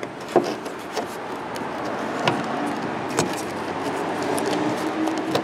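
Hands pressing a pleated cabin air filter down into its plastic holder and under the retaining tabs: a few sharp clicks and rustles of the filter edge and frame, over steady background noise that slowly grows louder.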